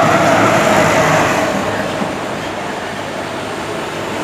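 A bus passing close by on the road, engine and tyre noise loudest in the first two seconds and then easing off, with a steady tone that drops slightly in pitch as it goes by.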